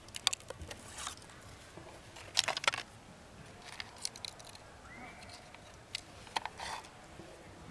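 Hands handling radio cables and connectors on a table: scattered clicks and light rattles in small clusters with short pauses between, the loudest cluster about two and a half seconds in.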